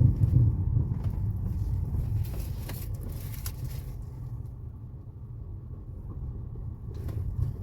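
Ford Fusion on the move with a low road rumble and several short knocks from the suspension. The knocking persists with the stabilizer bar and end links addressed, so they are not its main cause.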